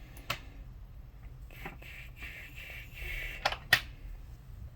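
Small sharp clicks and handling rustle as a power cable is plugged into a GoPro Hero 12 Black's charging port, with two louder clicks close together about three and a half seconds in.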